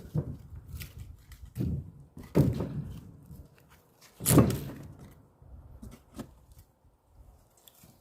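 An axe striking and splitting firewood logs: a series of heavy wooden thuds, the loudest about four seconds in.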